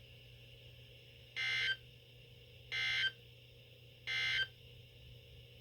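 Three short bursts of weather-radio SAME digital data tones, a warbling two-tone screech, about a second and a half apart. This is the end-of-message code that closes the broadcast severe thunderstorm warning. A faint steady hum from the receiver runs underneath.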